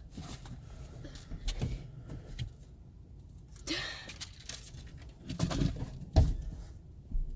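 Handling and movement noise: scattered soft knocks and rustles over a low rumble, with the loudest knocks a little after five and six seconds in.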